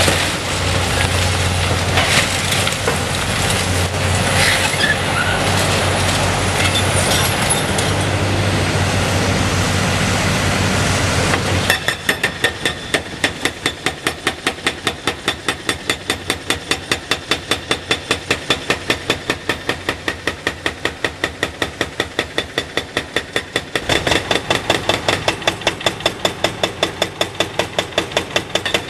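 Caterpillar 336E excavator's engine running hard as its hydraulic breaker grinds into a reinforced-concrete bridge deck. About twelve seconds in, the sound switches to the breaker hammering rapidly and evenly, about four blows a second, and the blows get a little louder toward the end.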